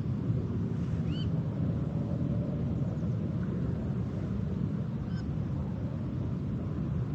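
Outdoor river ambience: a steady low rumble, with short, high, arching bird calls about a second in and again about five seconds in.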